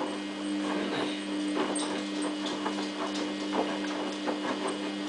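Samsung WF8804RPA washing machine in its main wash, the drum motor running with a steady two-tone hum while the drum turns slowly. Wet dog covers tumble and slosh inside, giving irregular knocks and splashes.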